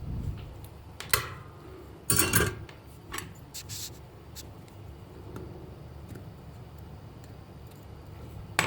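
A few sharp clicks and short rattles of small hard objects being handled. The loudest rattle comes about two seconds in and a single sharp click comes near the end.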